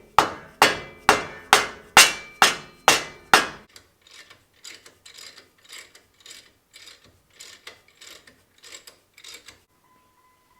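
Hammer blows on steel at a rusted truck steering knuckle, about two a second: eight heavy, ringing strikes, then lighter taps for the rest.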